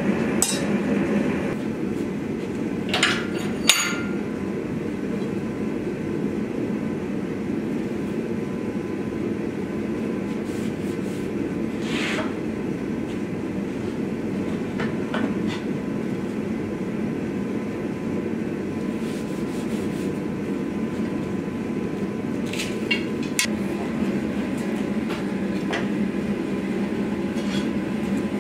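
Forced-air forge burner and blower running with a steady noisy hum. A few sharp metallic clinks and taps of steel knife blades being handled come about 3 and 4 seconds in, at about 12 seconds, and near 23 seconds.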